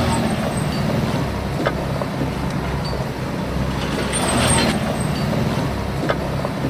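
Heavy diesel earthmoving machinery running steadily, with a few light clanks and a short hiss about four seconds in.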